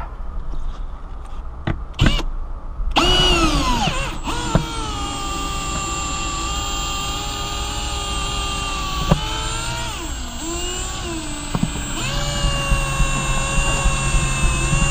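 Cordless drill with a right-angle drive and long bit turning a windshield cut-out wire winder, starting about three seconds in and running steadily with a whine. Its pitch sags and recovers briefly around the middle. A few sharp clicks come before it starts.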